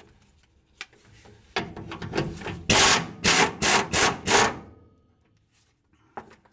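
Socket ratchet turning a threaded leaf-spring shackle pin: a run of short rasping ratchet strokes starting about one and a half seconds in, the loudest five coming about three a second before they stop at about four and a half seconds.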